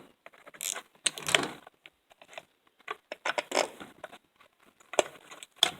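Irregular scrapes, clicks and rattles of hand tools and small metal parts as the exhaust muffler is being taken off a two-stroke weed eater engine.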